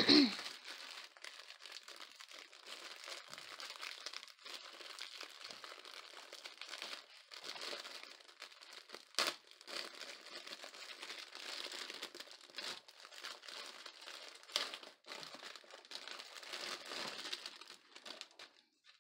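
Clear plastic wrapping around a fabric bundle crinkling steadily as hands handle it and open it. There is a loud crackle at the start and sharper crackles about nine and fourteen seconds in.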